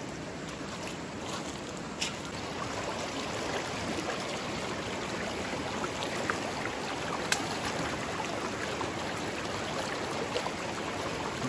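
Shallow, rocky river running steadily, a constant rush of flowing water, with a couple of brief sharp clicks about two and seven seconds in.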